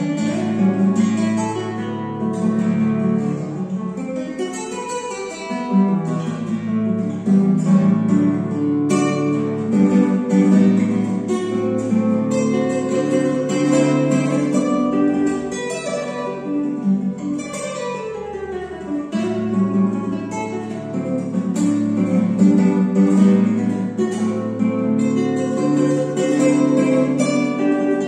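Giannini NWT1 nylon-string classical guitar, solid gonçalo alves body, fingerpicked in a choro piece: a continuous stream of plucked notes with a bass line moving under the melody.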